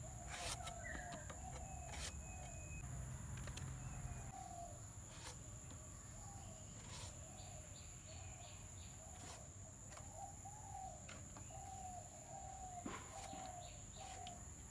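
A bird calls over and over in a steady series of short, curved notes, about one and a half a second, over a steady high insect drone. A few sharp clicks come from melon being cut on a fixed blade.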